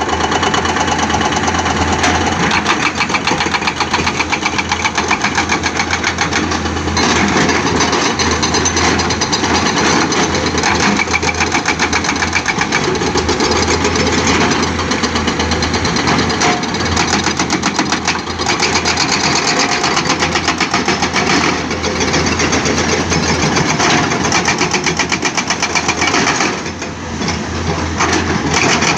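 Excavator-mounted hydraulic rock breakers hammering rock in a fast, steady pounding over the running diesel engines of the excavators. The pounding briefly eases near the end.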